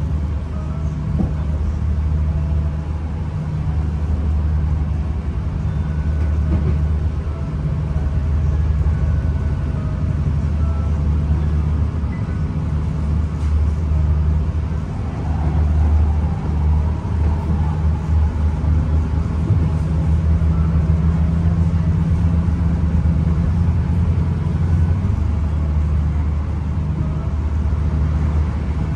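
Diesel train heard from inside the carriage while moving: a steady low rumble of engine and wheels on the rails, with a low hum running under it.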